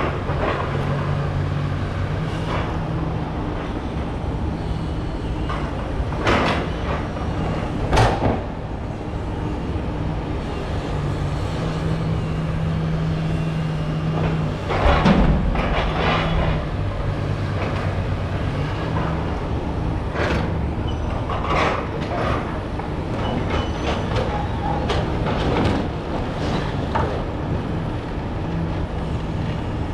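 Heavy construction machinery running steadily, with a string of sharp clanks and knocks, the loudest about eight and fifteen seconds in.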